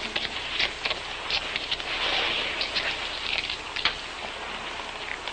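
Steady rain pattering, with scattered sharp ticks and a brief swell about two seconds in.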